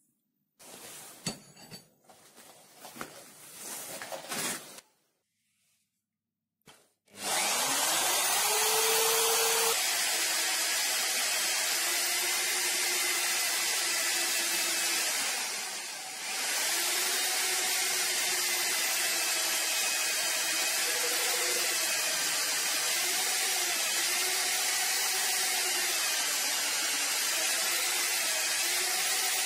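Rotary hammer, set to drill without hammering, driving a lathe-mounted drilling head: its motor starts with a rising whine about seven seconds in and then runs steadily while drilling a metal disc, dipping briefly in loudness partway through. Before that, clicking and rattling from a lathe handwheel being turned by hand.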